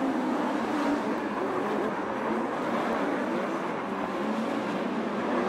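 Engines of several wingless open-wheel dirt-track race cars running hard as the pack races around the oval, their engine notes overlapping and rising and falling.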